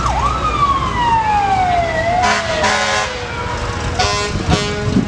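Fire truck siren whooping once, then winding down in one long falling tone. Several short horn blasts from the passing trucks cut in over it in the second half.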